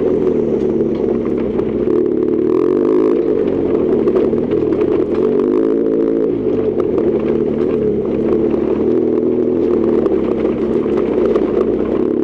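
BMW R1200GS Adventure's boxer-twin engine under way, its note rising and falling repeatedly with the throttle.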